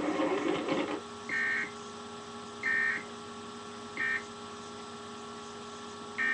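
Emergency Alert System end-of-message code: three short, shrill data bursts about a third of a second each and a little over a second apart, marking the close of the alert, over a steady electrical hum. Another burst begins right at the end.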